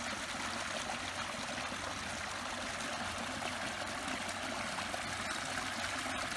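Small flow of water running and trickling steadily.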